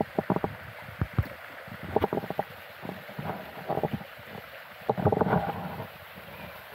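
Carp sucking and slurping at the water surface: clusters of short wet smacks and gulps that come in groups about every second, with a faint wind hiss on the microphone.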